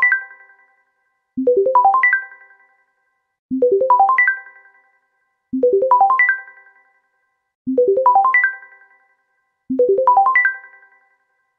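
LG T300 Cookie Lite mobile phone playing one of its ringtones: a quick rising run of bright electronic notes that rings out and fades, repeating about every two seconds, five times in a row.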